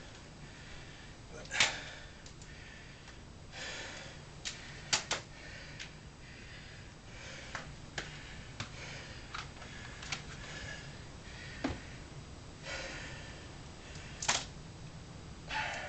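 Handling noise of the bending wraps, towels and steel bar: scattered sharp clicks and rustles, with several short hissing swells like forceful breaths between them.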